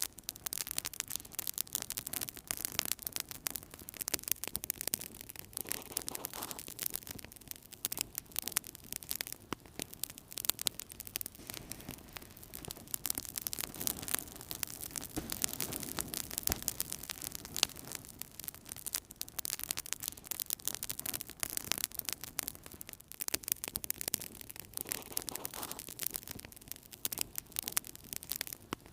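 Fire burning in a fireplace, crackling steadily with many small sharp pops over a soft low rustle of flames.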